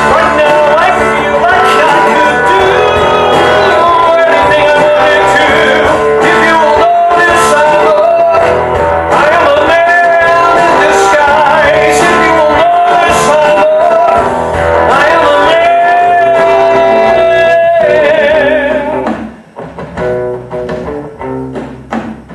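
A live rock band with guitar backs a singer holding long, wavering notes on a loud stage number. The held note ends and the full band drops out about nineteen seconds in, leaving quieter playing.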